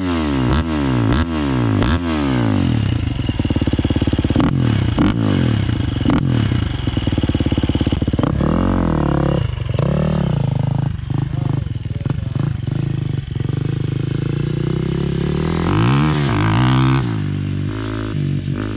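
KTM 350 EXC-F's single-cylinder four-stroke engine running through an FMF exhaust. It is revved in quick throttle blips, held at high revs for several seconds, then let drop back toward idle with a few more single blips.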